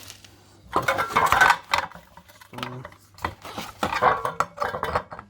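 Metal parts of a ZMZ-405 engine's air filter housing clinking and clattering as they are handled, in several irregular bursts.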